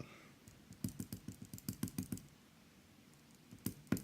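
Two quick runs of small, light metallic clicks, about seven a second, from a Yale Superior lock cylinder being handled and worked during disassembly.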